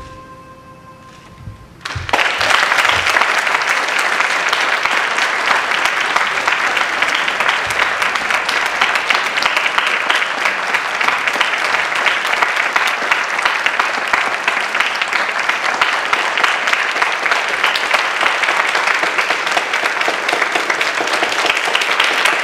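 A faint last note of music, then about two seconds in an audience starts applauding, loud and steady.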